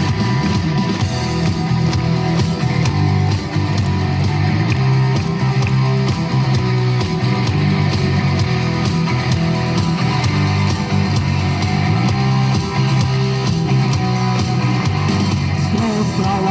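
Instrumental passage of a rock song: guitar over a stepping bass line and a steady beat.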